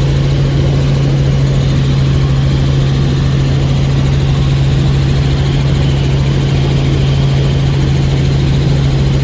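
Helicopter in flight heard from inside the cabin: a loud, steady drone of engine and rotors with a strong low hum that holds one pitch.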